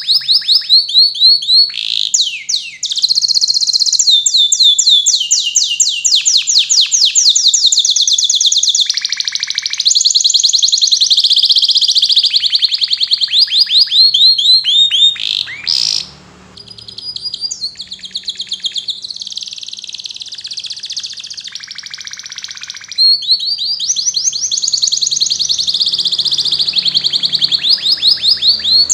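Domestic canary singing a long, loud song made of rapid trills, each a fast run of repeated high notes. About halfway through the song drops to a quieter, lower warble for several seconds, then the fast trills return.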